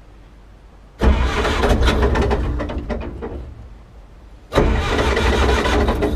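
Old Gleaner E combine's engine being cranked over with the choke on, in two tries: the first starts about a second in and dies away over a few seconds, the second begins about four and a half seconds in.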